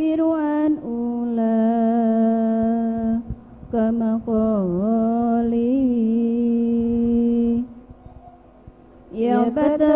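A woman's solo voice, amplified through a microphone, singing long drawn-out ornamented notes of an Arabic devotional song, with no drums. A short gliding phrase is followed by a held note of about two seconds and then a longer note that wavers and dips in pitch, which ends about three quarters of the way in.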